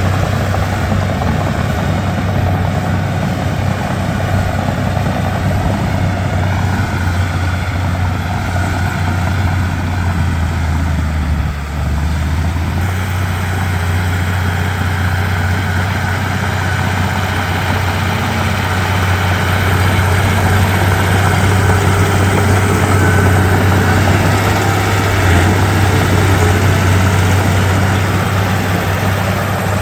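Diesel engine of a Komatsu D31P bulldozer running steadily with a deep, even drone. It dips briefly about 12 s in and grows somewhat louder from about 20 s in.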